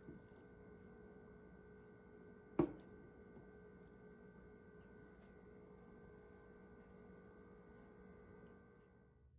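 Faint steady hum made of several constant tones, with one sharp click or tap about two and a half seconds in; the hum fades away near the end.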